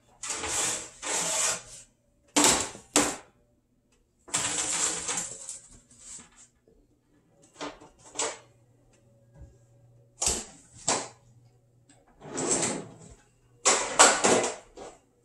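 Metal blade cutting through rolled pastry dough onto a granite countertop: a series of scraping strokes, some about a second long, mixed with short sharp taps of the blade on the stone.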